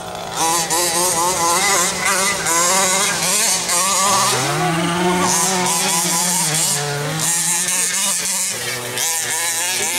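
Small two-stroke petrol engine of a 1/5-scale RC monster truck (a 29.5cc OBR engine with a tuned pipe) running and revving up and down unevenly as the truck drives, its pitch rising and falling throughout.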